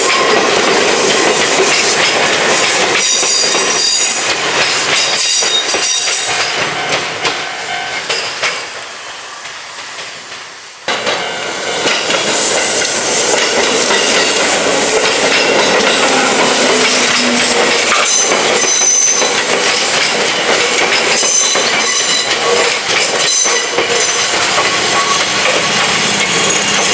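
Izu-Hakone Railway Sunzu Line electric train passing over a level crossing, its wheels clattering over the rail joints. The noise drops away for a few seconds near the middle, then comes back abruptly.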